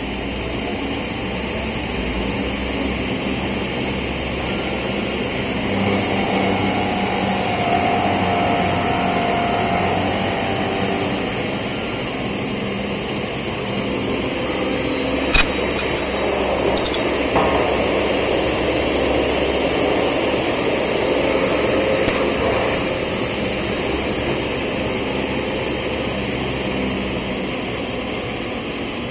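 Double mitre saw with a multi-spindle drilling unit running through a work cycle: drill spindles boring holes into a clamped wooden door-casing piece and saw blades cutting it to mitres, a steady loud machine noise with motor whines. A few sharp knocks come about halfway through.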